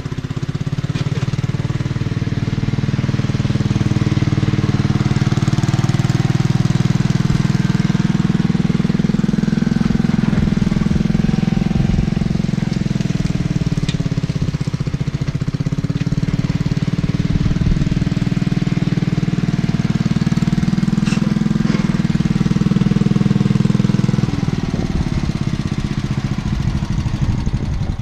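Worn-out 8 horsepower single-cylinder engine on an old Squire garden tractor running hard under load while pushing mulched leaves. Its note sags in the middle as it lugs, then recovers, and it eases off near the end.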